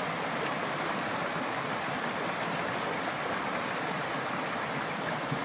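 A small mountain creek rushing over rocks, a steady, even rush of water.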